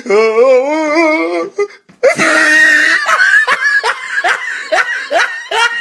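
Boys laughing loudly: a long wavering laugh, then after a brief break a run of rapid, hard laughs.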